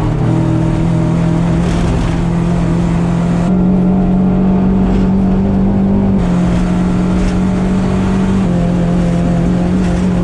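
Mazda Miata race car's four-cylinder engine running hard at steady, high revs. The pitch holds nearly level, with a small step up a few seconds in and small steps down later.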